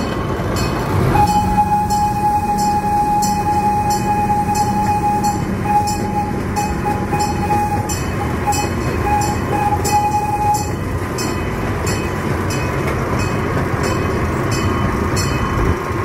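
Open-sided passenger train running along its track: a steady rumble with regular clicks about twice a second from the rails. A high steady squeal starts about a second in, breaks up into short pieces and stops about two-thirds of the way through.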